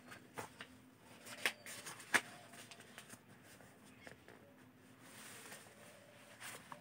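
Paper pages of a textbook being turned back, a few faint flicks and rustles, the sharpest in the first couple of seconds.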